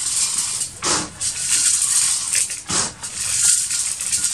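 Chicken feed pellets rattling and pouring as a metal can scoops them from a plastic tote and tips them into a plastic jug. There are sharper scoops about one second and just under three seconds in.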